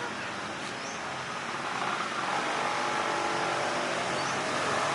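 Road traffic by a busy road, with motor vehicle engines running. From about two seconds in, an engine note builds and the sound gets slightly louder.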